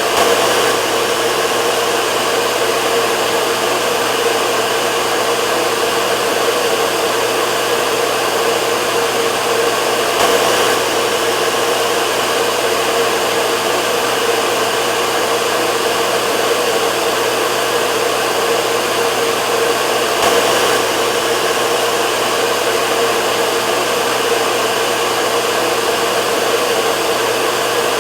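Hair dryer blowing steadily, an even rushing noise with a constant hum, and a slight swell about every ten seconds.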